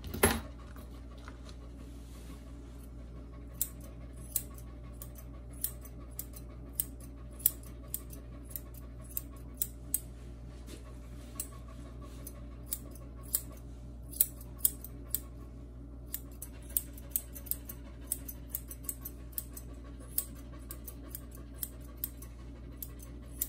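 Grooming scissors snipping a toy poodle's curly face hair around the muzzle: a string of sharp, irregular snips, about two a second.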